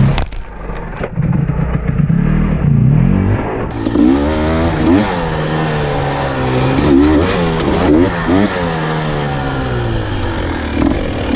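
Dirt bike engine revving up and down several times as it is ridden, the rises coming quickly one after another in the second half.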